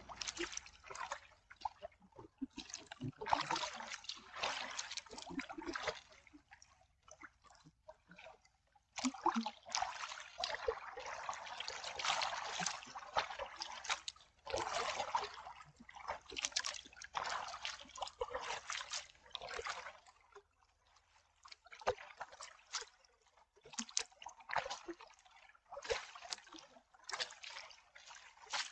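Canoe paddle strokes in lake water: the blade dipping and pulling with splashes and drips, in uneven bursts stroke after stroke, easing off for a couple of seconds about two-thirds of the way in.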